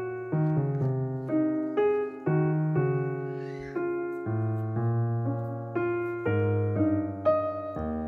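Background piano music: a gentle melody of single notes over slower, held bass notes.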